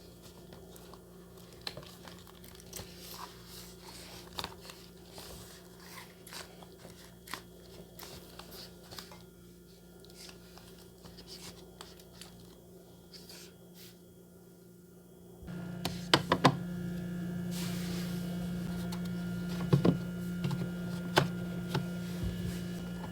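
Small tapping and crinkling handling sounds over a steady low hum; about two-thirds of the way in, a louder steady hum starts abruptly, with a few sharp knocks.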